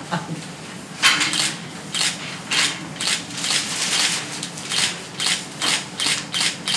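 DSLR camera shutter firing again and again, a few sharp mechanical clicks a second, starting about a second in.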